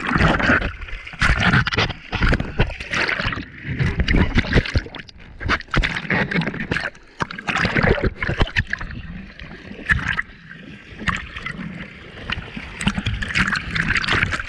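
Sea water churning, gurgling and splashing around a GoPro as it goes under and through the surf, with irregular sharp knocks and surges of water noise.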